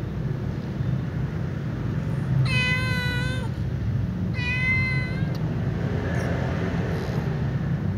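A cat meows twice: a drawn-out meow of about a second, then a slightly shorter one a second later, over a steady low background rumble.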